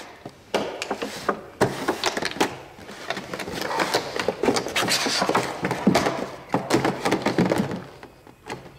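Handling noise from doll boxes: the clear plastic windows crinkle and crackle in irregular clicks, with the cardboard boxes knocking on a wooden table now and then.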